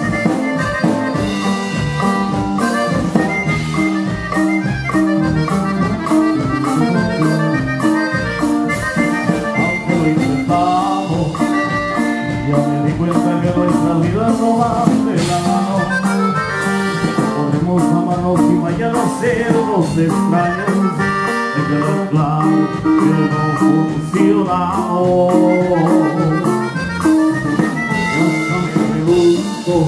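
Norteño band playing live: button accordion and saxophone over guitar, electric bass and drum kit, with a steady beat.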